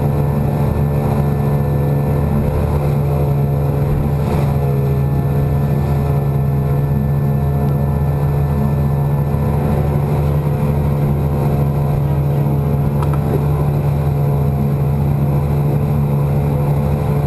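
Yamaha 9.9 hp two-stroke twin-cylinder kicker outboard running steadily at wide open throttle, pushing a loaded 17-foot boat at about 5 mph.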